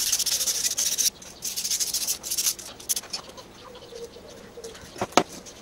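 Quick back-and-forth rubbing strokes on a small painted metal vise part worked by hand, in two spells in the first half, then a sharp knock about five seconds in as metal meets the bench.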